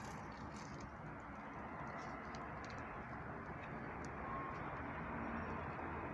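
Steady outdoor background noise, a low even hiss and hum, with a few faint ticks.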